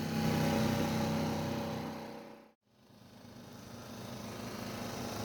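Boat's outboard motor running steadily while motor sailing, fading out about two and a half seconds in; after a moment of silence a steady rushing noise with the engine under it fades back in.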